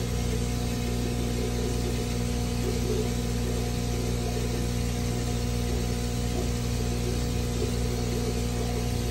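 Steady low mechanical hum, like a motor or fan running, with no change.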